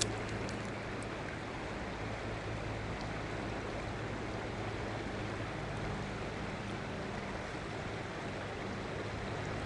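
Fast-flowing river water rushing steadily over a shallow riffle, with a steady low hum underneath.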